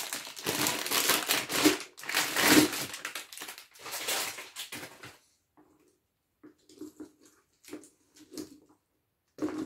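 Plastic packaging crinkling and rustling in dense bursts as modular power-supply cables are unpacked and handled. After about five seconds it gives way to softer, intermittent handling noises.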